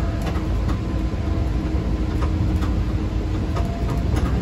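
MBTA Type 9 Green Line light rail car running along the track, heard from inside the cab: a steady low rumble with a faint steady whine and scattered clicks of the wheels on the rails.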